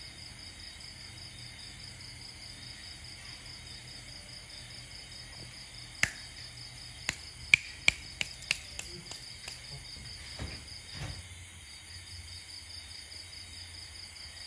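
Crickets chirping in a steady, fast-pulsing trill. About six seconds in comes a run of about nine sharp clicks over some three seconds, fading as they go, typical of a house gecko's chirping call.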